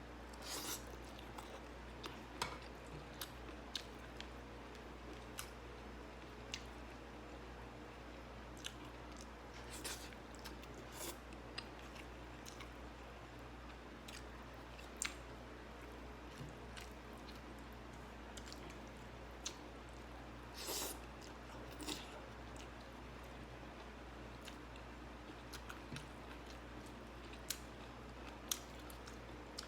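Close-up eating sounds: a person chewing and biting into crunchy raw vegetables, with scattered sharp crunches and clicks and short bursts of crunching, over a faint steady low hum.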